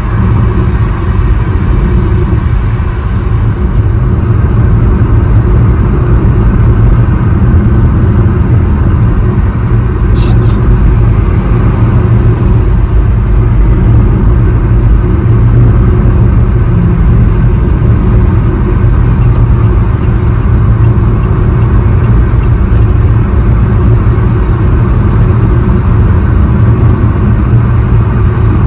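Steady low rumble of a car's tyre and engine noise heard from inside the cabin while cruising on a highway, with a brief click about ten seconds in.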